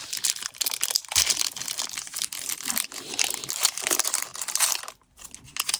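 Wrapper of a Topps Finest football card pack crinkling and tearing as it is ripped open by hand, the crackling stopping about five seconds in.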